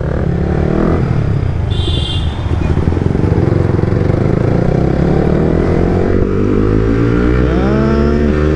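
Yamaha R15 V3's single-cylinder engine, breathing through an aftermarket Leo Vince Cobra exhaust with its outer dB killer taken out, running under way with its pitch rising steadily as the bike speeds up. Near the end a second engine briefly revs up and back down.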